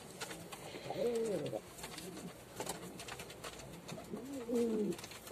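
Domestic pigeon cooing twice: a rising-then-falling coo about a second in and a longer one about four seconds in.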